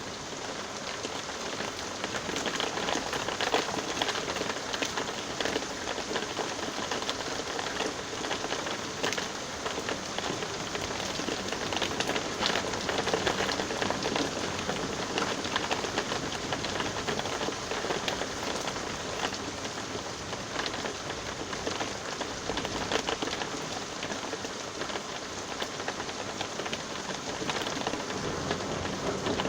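Steady rain falling, a dense hiss made of countless individual drop impacts on a hard surface, with no break or change in strength.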